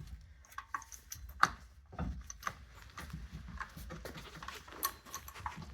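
Scattered light clicks and knocks of a wheel being worked onto the hub studs, with one sharper knock about a second and a half in, over a faint low hum.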